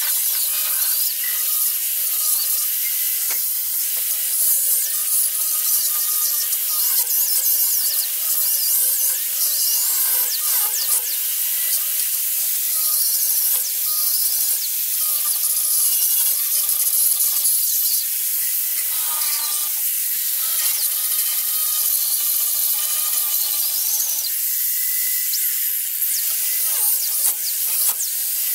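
Small hand-held disc grinder running continuously, grinding the steel floor pan of a 1966 Ford F100 for a patch panel. A steady high hiss with a whine that wavers in pitch as the disc bears on the metal.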